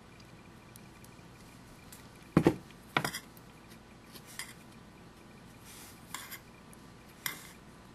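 Knocks and clinks of a plastic glue bottle and small craft tools being put down and picked up on a tabletop: two sharp knocks a little over two seconds in and at three seconds, then a few lighter taps.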